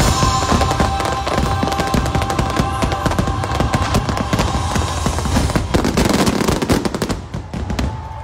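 Fireworks finale: a rapid, dense barrage of bangs and crackles over show music. The bursts thin out and stop about seven to eight seconds in.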